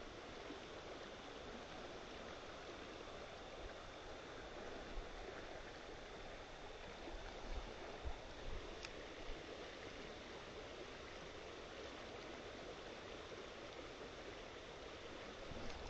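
Steady, faint rush of flowing stream water, with a few soft knocks partway through.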